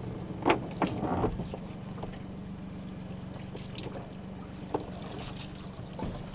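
Small outboard motor running steadily at idle, with a few short knocks and scrapes as a pot line is hauled in by hand and a lobster pot comes up to the boat's side.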